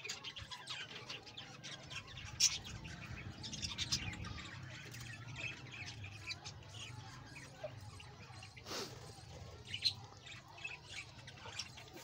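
A flock of budgerigars chirping, many short high calls overlapping throughout.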